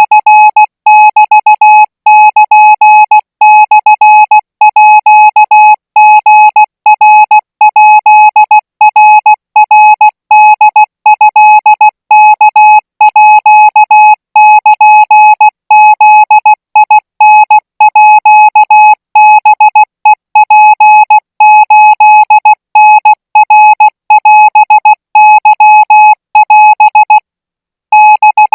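Morse code practice tone keyed at 20 words per minute, sending Thai Morse code: one steady mid-pitched beep broken into short dots and longer dashes, grouped into characters. A pause of about a second comes near the end.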